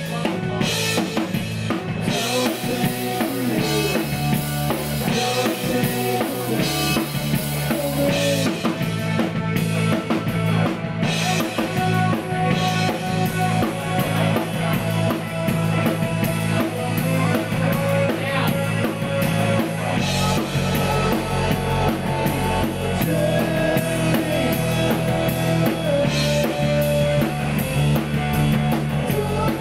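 Rock band playing live: a drum kit with bass drum, snare and cymbals driving a steady beat under two electric guitars through amplifiers.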